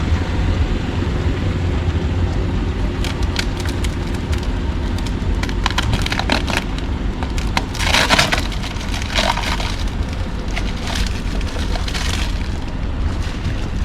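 Plastic being handled, crackling and clicking in scattered bursts, thickest about two-thirds of the way in, over a steady low rumble.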